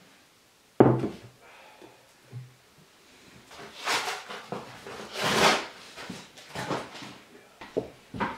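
A single knock about a second in, a dish set down on a wooden tabletop, then a run of short scraping and smearing sounds as cream is scooped from a pot and spread over a sponge cake layer with a silicone spatula, the loudest scrape about halfway through.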